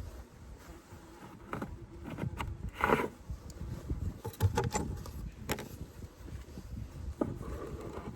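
Irregular knocks and scrapes of wooden beehive frames and hive parts being handled, about five separate knocks over a low rumble.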